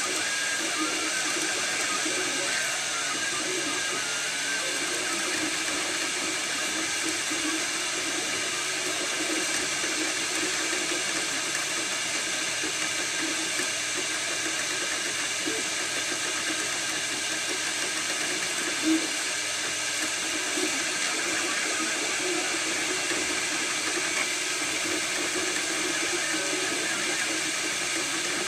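Desktop FDM 3D printer printing: the print head's cooling fan whirs steadily while the stepper motors buzz and whine, their pitch shifting as the head moves back and forth. There is one sharp tick about two-thirds of the way through.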